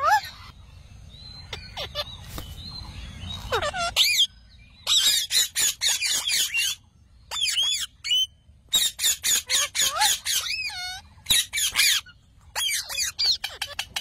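Rose-ringed (Indian ringneck) parakeets calling. There are a few faint calls at first; then, from about four seconds in, come runs of loud, high-pitched squawks in quick succession with short pauses between them.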